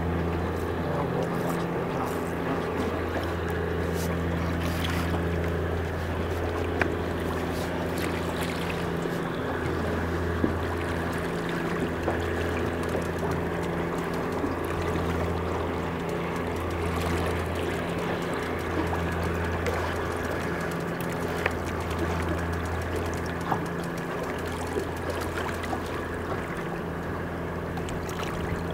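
Boat engine running steadily, a low hum that swells and eases slightly every second or two, with a few faint clicks.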